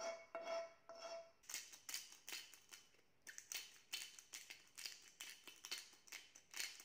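Hand-held spice grinder being twisted over a plate of pasta: quick rough crunching strokes of the grinding mechanism, about three a second, starting after a second and a half and stopping suddenly at the end. Before that, a light clink with short ringing pulses.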